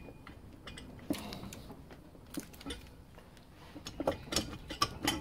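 Metallic clinks and knocks as the Honda CB750's four-cylinder block is rocked and worked up its studs off the crankcase, one knock about a second in, a couple more midway, and a quick run of clinks near the end.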